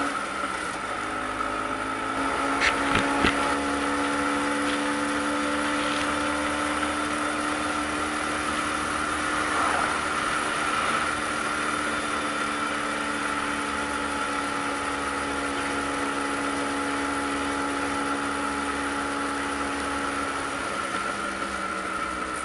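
Vespa PX 150's single-cylinder two-stroke engine running under way at steady revs, over an even rush of wind and road noise. There are a few sharp knocks about three seconds in, and the engine note drops slightly near the end.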